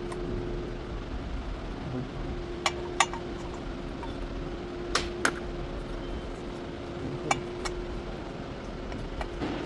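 Sharp metallic clinks from tools at work on a car's front suspension, falling in three pairs a couple of seconds apart, over a steady hum.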